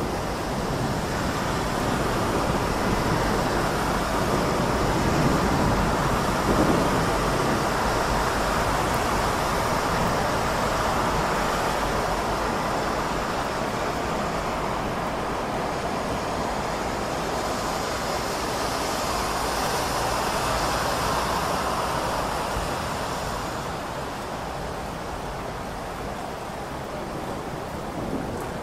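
Steady heavy rain in a city storm, with low thunder rumbling and traffic noise underneath, swelling slightly about five to seven seconds in and easing a little near the end.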